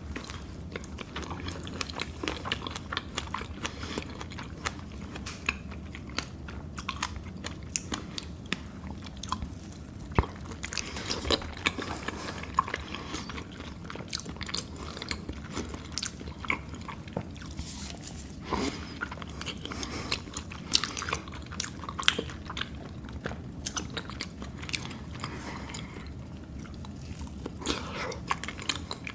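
Close-miked chewing and biting of food, with irregular wet clicks and crunches of mouth sounds.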